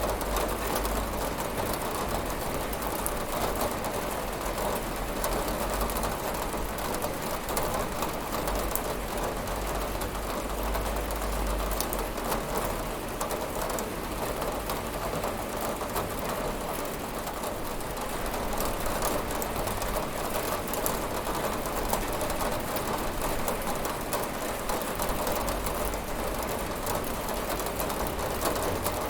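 Steady rain falling on a window and surroundings, a dense even patter of drops with a low rumble underneath and no let-up.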